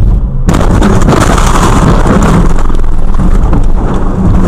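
Violent car crash at the dashcam car: a sudden loud impact about half a second in. About four seconds of loud, distorted crash noise follows.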